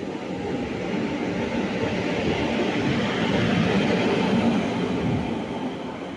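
Passenger train on the next track passing close by, its coaches rumbling and clattering over the rails. The noise swells to a peak about four seconds in, then eases.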